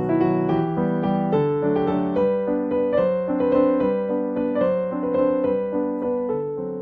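Background piano music: a gentle melody over chords, played at an even pace.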